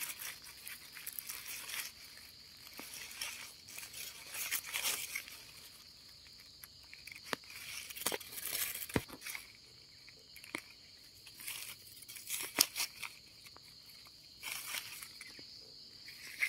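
A steady, high-pitched chirring of insects such as crickets, over dry leaf litter rustling and crackling with sharp snaps as hands pick termite mushrooms from the ground.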